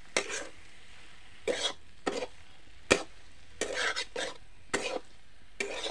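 Flat metal spatula stirring and scraping potatoes and masala around a metal kadhai in irregular strokes, with one sharp clack against the pan near the middle. A low sizzle of the masala frying runs underneath.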